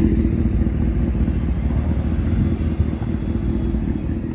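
A motor vehicle's engine running with a low, steady note that slowly fades, as if the vehicle is moving away.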